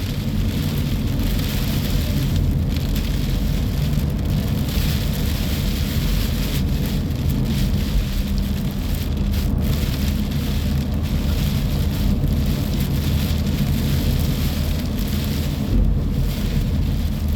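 Rain on a moving car, with steady road and engine rumble heard from inside the cabin.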